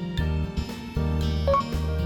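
Background music: an instrumental track with plucked guitar and keyboard notes changing about twice a second over a steady bass.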